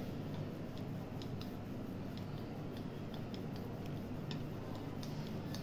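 Wooden rolling pin rolling out a stuffed kachori dough round on a stone countertop: faint, irregular light clicks as the pin moves back and forth, over a steady low hum.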